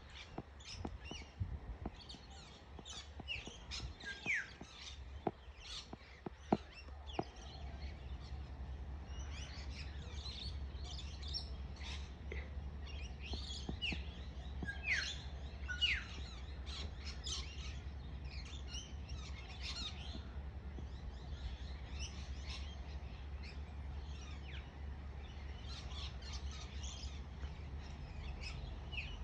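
Many birds chirping and twittering, with a few clear whistled notes that fall in pitch. A few soft knocks sound in the first seven seconds over a steady low rumble.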